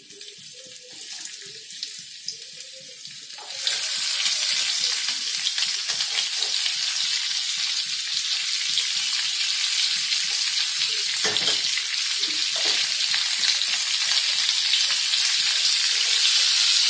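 Stuffed okra frying in hot oil in a nonstick pan: a steady sizzle that jumps up sharply about three and a half seconds in as more pods go into the oil, then stays loud. Two short knocks come in the middle.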